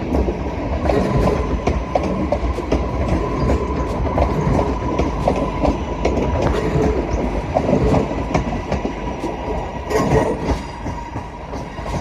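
Class 323 electric multiple unit moving slowly through the station, its wheels clicking irregularly over rail joints and pointwork above a steady rumble, with a steady whine.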